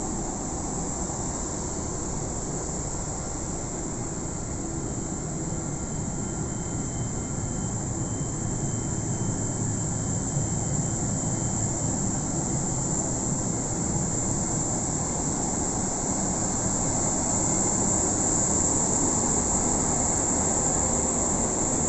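Steady rushing hum of the parked Boeing 777-200's cabin air-conditioning, growing slowly louder.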